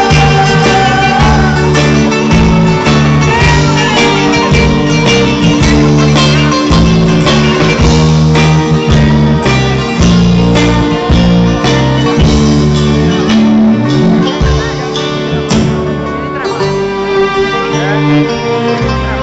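Live band playing Greek pop music with a steady drum beat, bass and guitars, loud as heard from within the crowd. About three-quarters of the way through, the music thins out and gets a little quieter.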